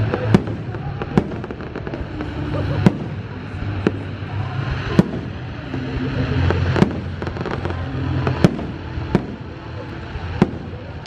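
Aerial fireworks shells bursting: about nine sharp bangs, roughly one a second, over a steady low rumble.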